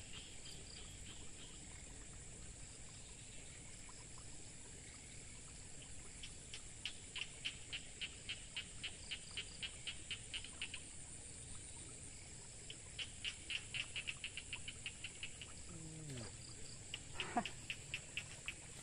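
Field ambience of insects: a steady high-pitched drone, with several runs of rapid ticking calls a few seconds long. A brief low sliding sound comes near the end.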